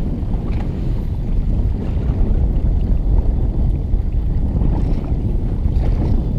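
Strong wind buffeting the microphone in a steady low rumble, with choppy water slapping against a kayak's hull.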